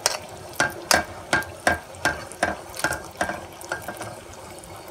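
A ladle stirring boiling sugar syrup in a steel pan, knocking and scraping against the pan about two to three times a second, with the syrup bubbling underneath. The stirring stops near the end.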